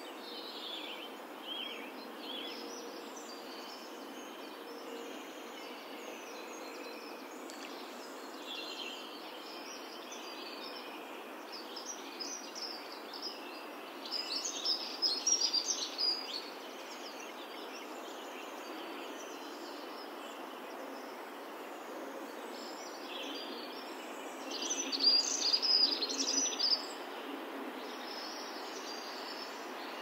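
Birds chirping and singing over a steady background hiss of outdoor ambience. The song swells twice, about halfway through and again near the end.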